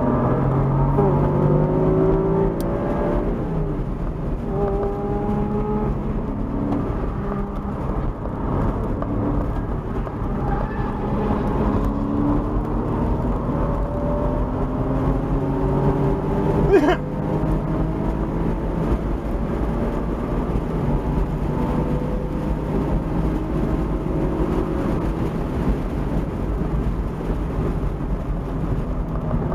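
Porsche Boxster 986 S's 3.2-litre flat-six heard from inside the cabin at track speed. Its pitch climbs again and again and drops back at each gear change, over steady wind and road noise. A brief sharp noise cuts through about seventeen seconds in.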